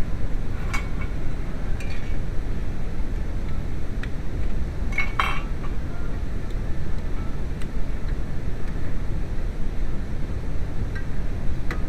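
A few light metallic clinks, the loudest about five seconds in, over a steady low rumble.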